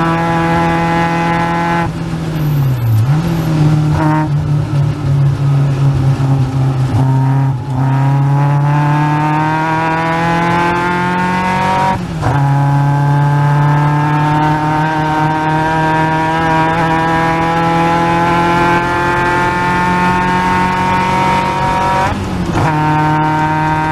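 Caterham Seven's 2.3-litre Ford Duratec four-cylinder engine at racing pace. Revs drop and come back up two to four seconds in, as the car lifts off and changes down. It then pulls through the gears, with sharp upshifts about 7.5, 12 and 22 seconds in and a long, slowly rising pull between the last two.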